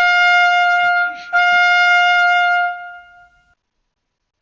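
A loud, brass-like held note, like a trumpet blast, sounded twice on the same pitch. The first blast breaks off about a second in, and the second fades away about three seconds in.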